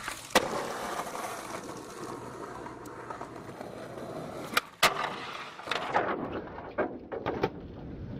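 Skateboard wheels rolling on concrete, with sharp clacks of the board hitting the pavement: one about half a second in, two close together just before the middle, and several more near the end.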